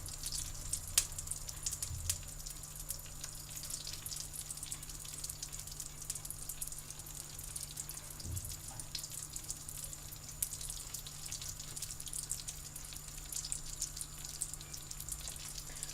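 Cooking fat gently sizzling in a pot, a quiet, steady scatter of small crackles and pops over a low hum.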